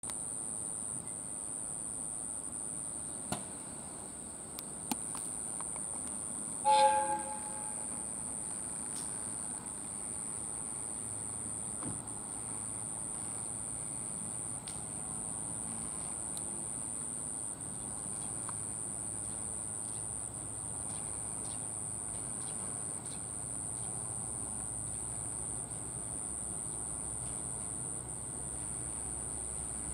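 Diesel railcar sounding one short two-tone horn blast about seven seconds in. Its engine then runs as a low rumble that grows as the railcar slowly approaches, over a steady high-pitched drone.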